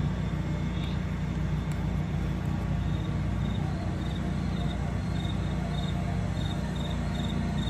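Steady low outdoor rumble with a cricket chirping in a steady rhythm, about two to three high chirps a second, from about three seconds in.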